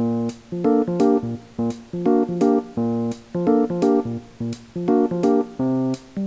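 Background music: a keyboard playing short repeated chords in a steady, bouncy rhythm.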